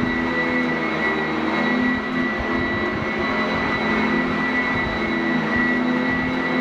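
Sanitaire SC899F commercial upright vacuum running steadily on carpet, its motor giving a constant high whine over a steady rushing airflow.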